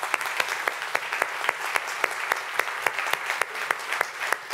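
A church congregation clapping their hands together on request. One person's claps close to the microphone stand out as a quick, steady beat over the haze of everyone else's clapping.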